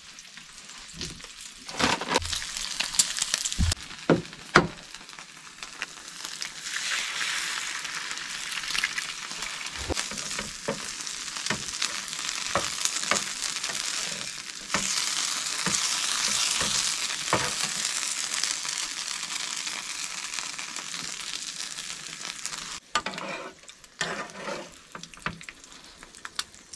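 Bacon, tater tots and eggs sizzling in a skillet, with a spatula stirring and scraping the pan, clicking against it throughout. There are several sharp knocks in the first few seconds, and the sizzle dies down near the end.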